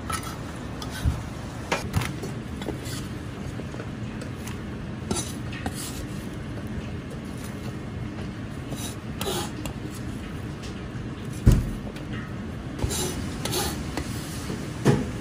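Chinese cleaver and sliced onions being scraped off a plastic cutting board and into a stainless steel tray: scattered knocks, taps and scrapes, the loudest about eleven and a half seconds in. A steady low hum runs underneath.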